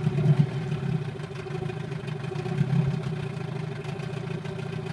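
Brand-new engine running with an uneven beat and brief swells in level about a third of a second in and near three seconds. The owner complains that this engine keeps coughing ('sneezing') and stalls when the choke is pulled fully out.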